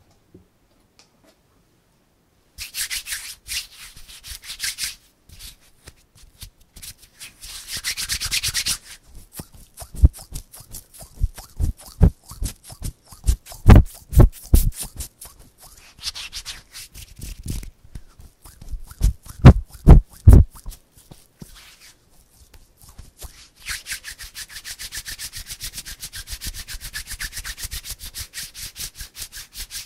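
Close-miked bare hands: a few bursts of palms rubbing together, then a run of quick taps and pats with deep thumps, and finally fast, even back-and-forth rubbing. It starts after a couple of seconds of quiet.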